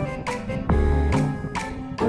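Background music with short plucked-sounding notes over a bass line.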